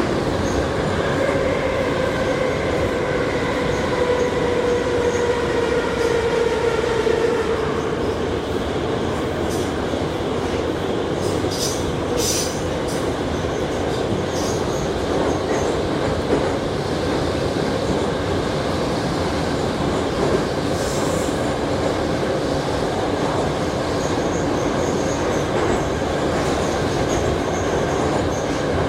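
81-717/714 metro train running through the tunnel, a steady rumble of wheels on rails. A whine of several tones sinks slightly in pitch and fades out over the first eight seconds or so, and a few brief high squeaks come about twelve seconds in.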